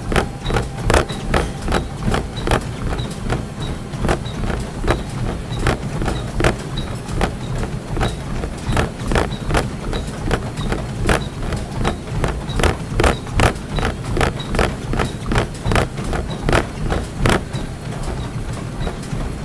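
Running footfalls in a steady rhythm, about two to three a second, over a low continuous hum.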